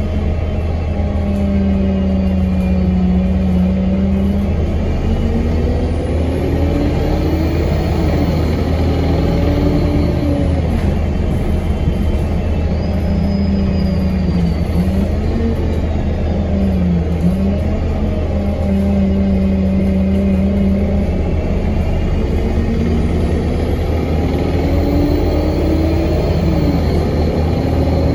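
2017 Alexander Dennis Enviro 200 MMC single-deck bus heard from inside the passenger saloon on the move: a steady low engine and road rumble, with the engine note rising and falling several times as the bus speeds up and slows.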